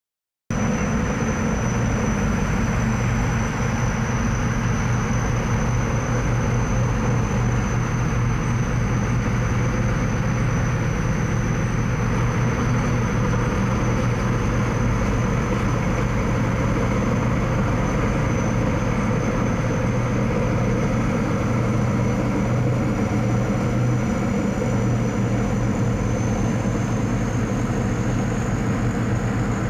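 Thai Seng Yontr Kan Kaset rice combine harvester running steadily under power: a heavy, even engine hum with a thin high whine above it that rises slightly near the end.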